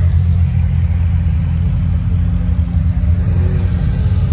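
Several sports car engines, among them air-cooled Porsche 911s, running at low revs as a line of cars rolls slowly past, making a steady deep rumble.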